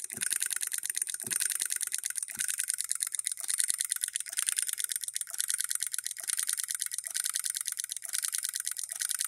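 Hand-built electric hit-and-miss solenoid engine running: a fast, steady clatter of its moving parts, with a soft knock about once a second. It is hitting and missing, the coil pulling only on some strokes while the flywheel coasts between.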